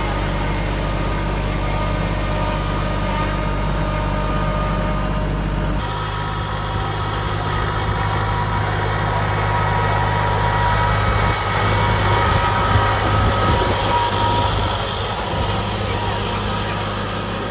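Compact farm tractor's engine running steadily as it tows a hay wagon, with a low even hum; the sound changes abruptly about six seconds in.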